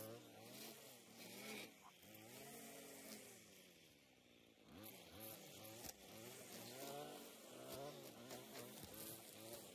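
String trimmer running and cutting grass, its buzzing whine rising and falling in pitch over and over as the line meets the grass.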